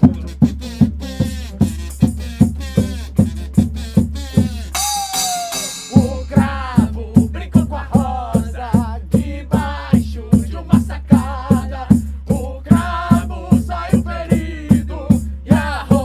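Up-tempo rock-and-roll song with a steady pounding drum beat of about three strokes a second, bass and sung vocals. About five seconds in, the beat and bass drop out for a second while a short blown note with a slight downward bend sounds, then the band comes back in.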